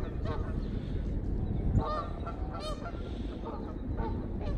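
Several Canada geese honking, with short calls repeated over and over, over a steady low rumble.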